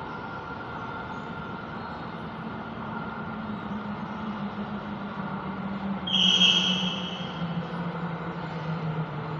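Copenhagen Metro train at the platform, its electric drive humming lower and lower in pitch as it slows, with a brief loud high-pitched squeal about six seconds in.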